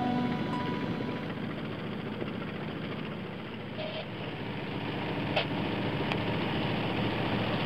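Engine of a small sailing yacht running steadily as the boat motors along, heard as a dense, even rumble and rush. A brief click about five and a half seconds in.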